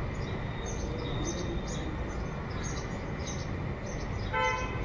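Birds chirping: short high chirps repeating several times a second, with one short steady-pitched call near the end.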